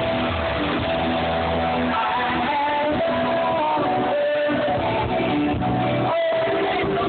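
Live band music with a lead electric guitar playing held and sliding notes over strummed guitars and bass.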